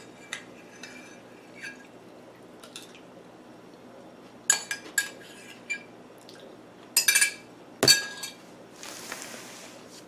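Metal spoon scraping and clinking against a ceramic soup bowl as the last spoonful is scooped out. A few sharp clinks come in two clusters, the heaviest about eight seconds in with a dull knock, followed by a soft rustling noise near the end.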